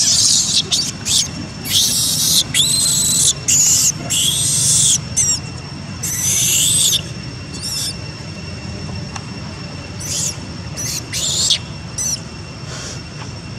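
Infant long-tailed macaque screaming in distress after being bitten: a quick run of high-pitched screams, some bending up and down in pitch, over the first seven seconds or so, then a few more shorter screams later on.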